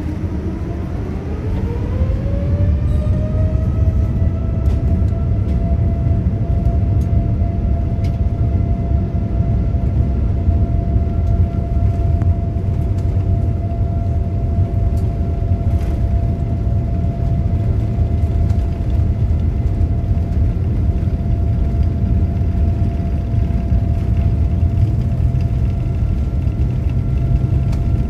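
Boeing 787-9's turbofan engines spooling up to takeoff thrust, heard from inside the cabin: a rising whine that levels off after about two to three seconds into a steady tone, over the heavy rumble of the takeoff roll.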